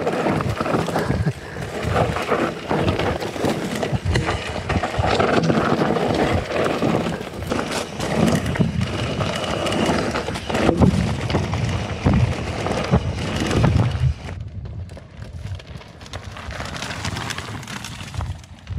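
Santa Cruz Bullit electric mountain bike descending a rocky dirt trail: tyres crunching over stones and the bike rattling with many irregular knocks. About fourteen seconds in the sound drops to something quieter and softer.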